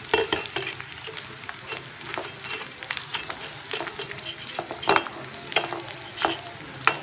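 Crushed gond (edible gum) sizzling as it fries in hot ghee in a steel pan. A perforated steel skimmer stirs through it, scraping the pan about once or twice a second.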